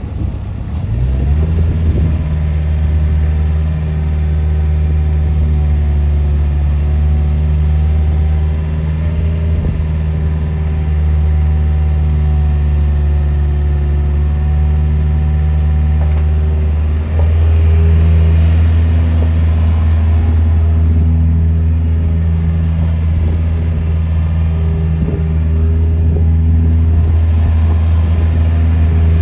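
Takeuchi TB150C midi excavator's diesel engine running steadily, coming up to speed in the first second or two. The engine tone shifts slightly after a brief dip about 17 seconds in.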